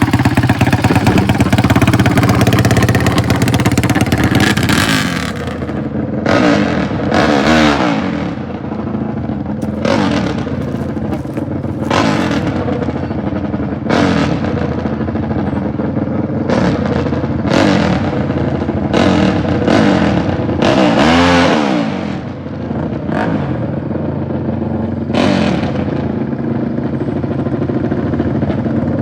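Four-stroke dirt bike engines: a loud full-throttle run for about the first five seconds, then an engine idling with repeated sharp throttle blips every second or two, the pitch rising and falling with each rev.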